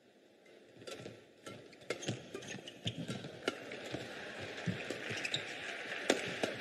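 Badminton doubles rally: rackets striking the shuttlecock in quick exchanges, with players' footwork on the court between the hits. The sharpest hit comes about six seconds in.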